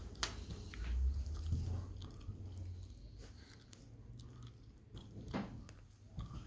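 Handling noise and footsteps from a handheld phone camera carried through small rooms: scattered light clicks and knocks over a low rumble, which is strongest from about one to three seconds in.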